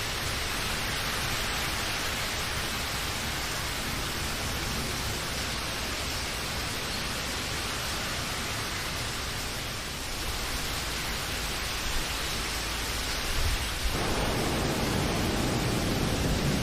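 Steady rain, an even hiss. Near the end it turns deeper and a little louder.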